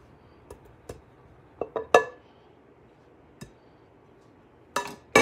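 Scattered light clinks and knocks of glass and metal kitchenware being handled, one around two seconds in ringing briefly, and a small cluster near the end.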